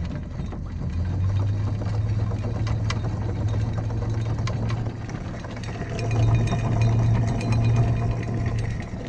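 Electric anchor windlass running as chain pays out over the bow roller, a steady motor hum with scattered clinks of chain links; the hum swells a little about six seconds in.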